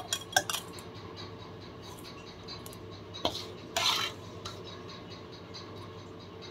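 A spatula scraping and knocking against cookware as dry roasted semolina is scooped out and tipped into a stainless steel pot. There are a few light clinks in the first half second, another about three seconds in, and a brief scrape about four seconds in.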